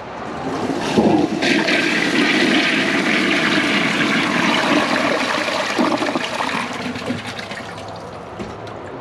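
2008 Kohler Cimarron toilet flushing from a high bucket tank. Water rushes in abruptly about a second in, runs loudly for several seconds as the bowl empties down the siphon, then fades.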